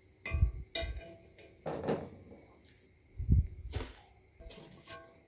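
A wire spider strainer and a metal ladle knocking and scraping against a kadai while rice flakes fry in oil: several separate knocks, some with a low thump, at irregular intervals.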